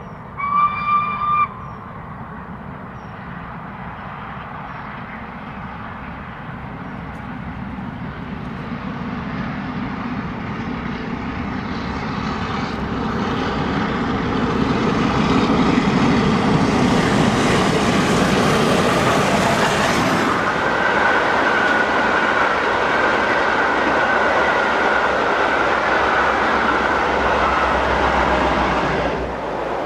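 A brief steam whistle, then LNER Peppercorn A1 Pacific 60163 Tornado, a three-cylinder 4-6-2 steam locomotive, approaching and passing at full speed with its train. Its rumble grows steadily louder to a peak, then the coaches run by with a steady high ringing tone over the noise, and it fades near the end.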